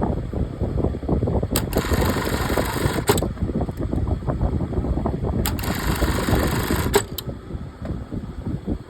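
Industrial single-needle lockstitch sewing machine running in two short sewing bursts of about a second and a half each, each starting and ending with a sharp click, over a steady low rumble.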